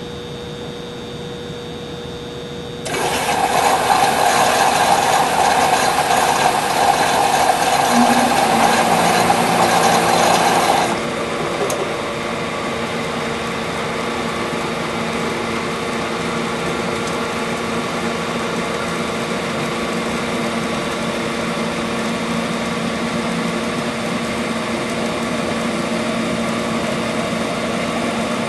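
A humidifier running. A loud, even rushing noise lasts about eight seconds and cuts off sharply, leaving a steady motor hum with a fixed whine.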